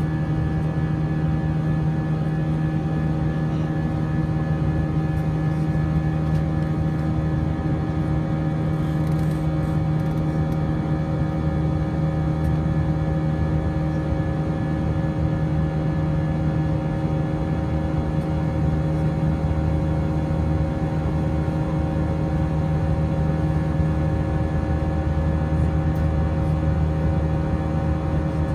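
Airbus A320 cabin noise in flight, heard from a seat over the wing: a steady drone of the engines and rushing air, with several held hums over it.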